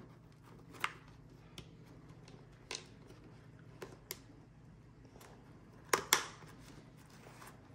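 Small plastic clicks and rubbing as fingers work the Sena SRL-Mesh unit's plastic housing and rubber lip into the Shoei Neotec II helmet's liner. There are a handful of sharp clicks, the loudest a quick pair about six seconds in, over a faint steady hum.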